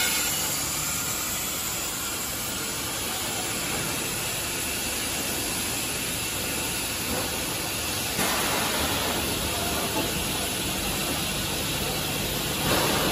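CNC tube laser cutting machine with an automatic tube loader running: a steady mechanical hiss and hum, a little louder from about eight seconds in.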